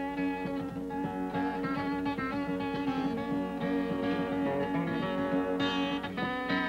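Flat-top acoustic guitar picked in an instrumental passage, single notes ringing over steady lower strings that hold like a drone.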